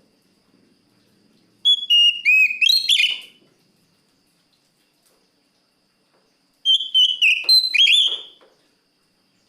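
Oriental magpie-robin (kacer) singing loudly: two phrases of clear whistled notes with sliding pitches, each about two seconds long, the first about a second and a half in and the second a few seconds later.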